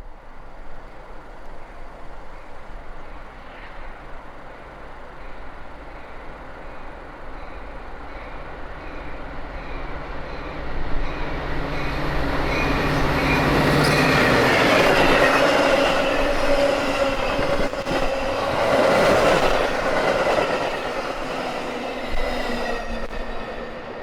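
A train passing on the rails: a rumble of wheels that builds to its loudest in the middle and eases near the end, with high steady ringing tones and scattered clicks from the wheels over the track.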